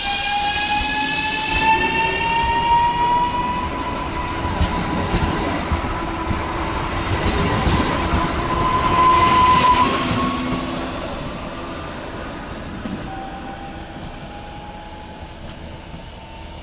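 Electric multiple unit 36WEd pulling away, its traction drive's whine rising slowly in pitch as it accelerates, with a few wheel clicks over rail joints. A hiss cuts off about two seconds in, and the train fades steadily as it moves off.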